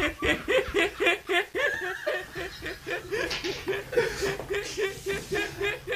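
A man and a woman laughing hard over a video call, in quick repeated ha-ha bursts of about five a second.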